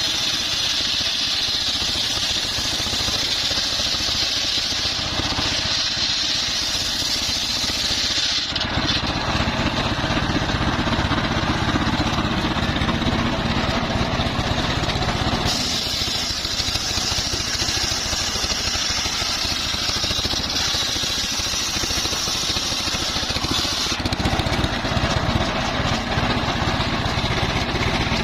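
Engine-driven portable circular sawmill running steadily while its blade saws trembesi (rain tree) timber. A steady engine drone sits under a high cutting whine that grows and fades several times.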